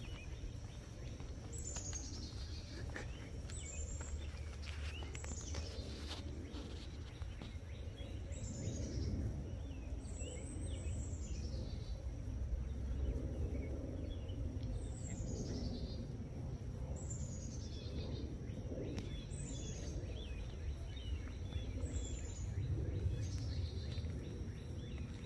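A small bird calling over and over, each call a short high whistle falling in pitch, about every two seconds, over a steady low outdoor rumble. A thin steady high tone runs behind.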